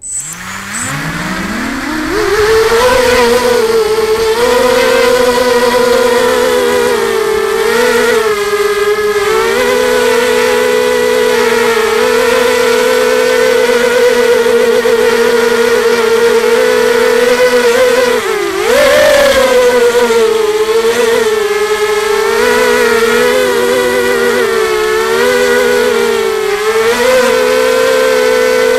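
Electric motors and propellers of an FPV racing drone spinning up from rest, the whine rising in pitch over about two seconds, then a steady whine that wavers up and down with the throttle as it hovers, heard close from the onboard camera. About 18 seconds in the pitch drops briefly and jumps back up.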